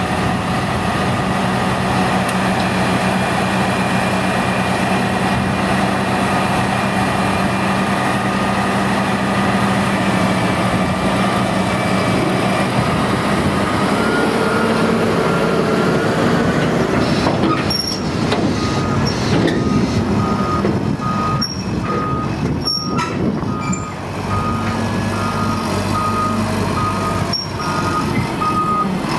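Heavy diesel engines of a Liebherr 538 wheel loader and a tractor working a grass silage clamp. From a little past halfway, a reversing alarm gives regular short, high-pitched beeps over the engines as the loader backs off.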